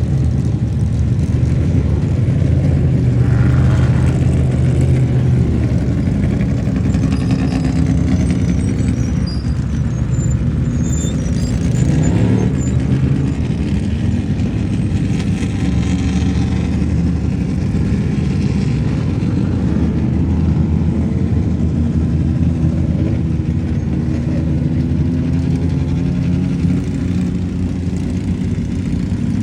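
Off-road race vehicle engines running with a steady low drone; about twelve seconds in, one engine note sweeps down and back up, and near the end the pitch rises.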